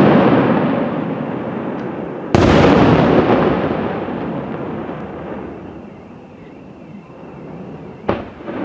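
Aerial firework shells bursting. The rumble of one burst is fading as a second loud boom goes off about two seconds in and rolls away over several seconds. A shorter, quieter bang comes near the end.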